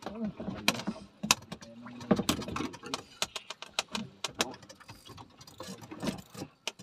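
Indistinct talking, with irregular sharp clicks and knocks scattered throughout, the loudest around 1 s, 2 s, 4.5 s and 6 s in.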